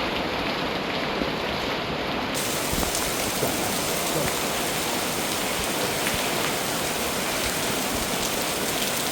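Heavy rain falling, a steady hiss that turns brighter about two seconds in.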